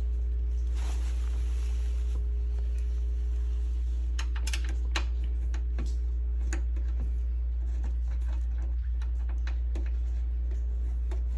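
Small clicks, ticks and a short rasp from hand tools, a screw and metal and plastic door parts being handled while a door latch is fastened in place, over a steady low hum. The clicks are thickest a few seconds in.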